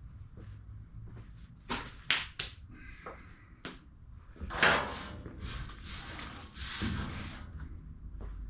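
Workshop handling noises: a series of knocks and clatters, the loudest about four and a half seconds in.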